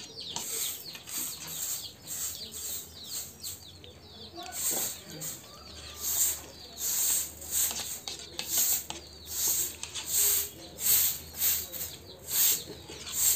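Chewing and lip-smacking of two people eating soft rice halwa from spoons, about two smacks a second.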